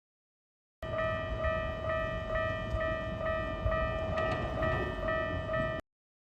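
Japanese railway level-crossing warning bell: an electronic alarm tone striking about twice a second over a steady ringing tone, starting suddenly about a second in and cutting off about five seconds later.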